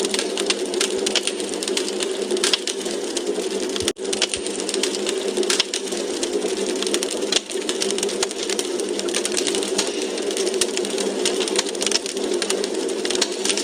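Wood fire crackling in a fireplace: quick irregular pops and snaps over a steady hiss. The sound cuts out for an instant about four seconds in.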